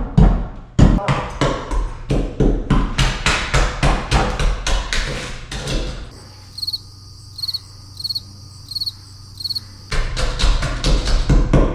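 Rapid hammer blows, about three or four a second, typical of pounding a pry bar under old particle-board underlayment. They stop for about four seconds in the middle, where a high-pitched chirp repeats evenly, then the hammering resumes near the end.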